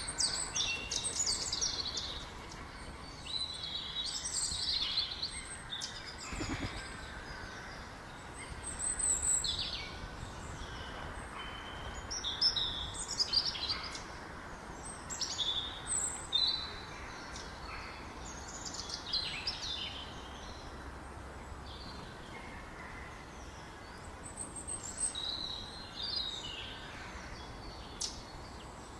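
Short, high chirping calls in clusters every few seconds, over a steady outdoor hiss.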